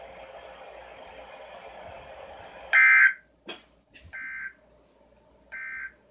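Weather radio hiss, then three short, loud, buzzy data bursts about 1.4 s apart, the first the loudest. These are the NOAA Weather Radio SAME end-of-message tones that close the weekly test. Two sharp clicks fall between the first and second bursts.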